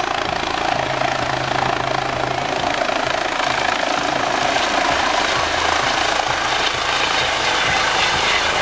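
Helicopter running steadily as it comes in low to land, its rotor and engine noise dense and even.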